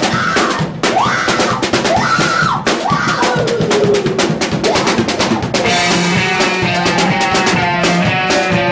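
Live punk rock band playing an instrumental passage with a pounding drum kit. Rising-and-falling wailing notes sound over the drums for the first three seconds. From about halfway through, sustained pitched notes join in, one sliding slowly downward.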